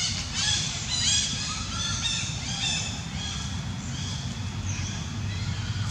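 A chorus of many short, high squawking chirps from animals, overlapping densely for the first few seconds and then thinning out, over a steady low rumble.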